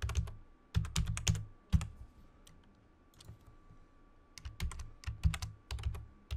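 Typing on a computer keyboard: a quick run of keystrokes, a pause of about two seconds, then another run, as a password is entered and then entered again to confirm it.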